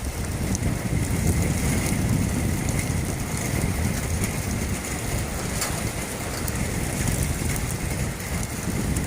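Thunderstorm wind buffeting the microphone in a steady low rumble, with rain hissing over it.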